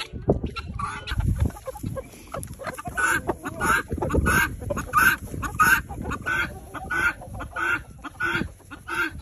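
A flock of chickens and guinea fowl calling, with one call repeated about twice a second from about three seconds in. Wind rumbles on the microphone in the first few seconds.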